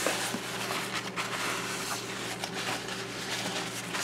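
A towel wiping and rubbing across a granite countertop: a steady scrubbing hiss with a few light knocks, over a low steady hum.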